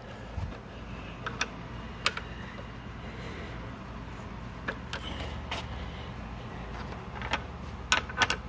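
Tongue-and-groove pliers working a hex nut on a carriage bolt, standing in for a wrench: scattered sharp metal clicks as the jaws grip, slip and re-bite on the nut, over a steady low rumble.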